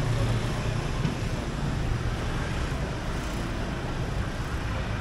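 Street traffic noise: a steady hum of motorbike and car engines, loudest in the first couple of seconds as a scooter passes close by.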